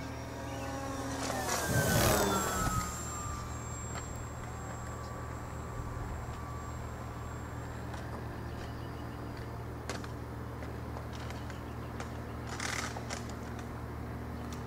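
Electric motor and propeller of an E-flite Apprentice S 15e RC plane whining overhead, loudest about two seconds in as it passes close, its pitch dropping as it goes by. It then carries on as a fainter, steady whine.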